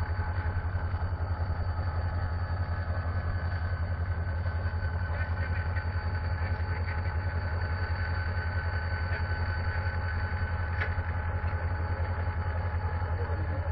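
Heavy diesel engine idling steadily, a deep even hum that holds unchanged throughout.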